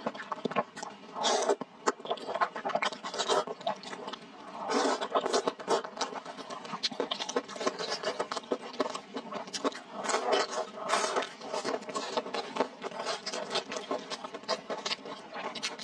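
Close-miked eating: repeated wet slurps of thick, sauce-coated rice noodles every second or two, with chewing and lip-smacking clicks between them.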